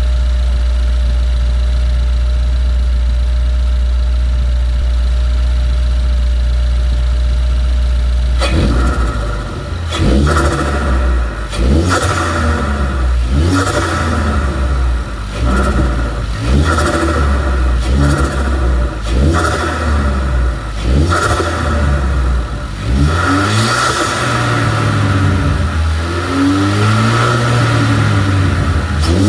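Ford Focus ST's turbocharged 2.0-litre four-cylinder through a Cobb cold air intake: a steady low drone, then from about eight seconds in repeated revving runs that rise and fall in pitch. Each throttle lift brings a turbo whoosh and flutter.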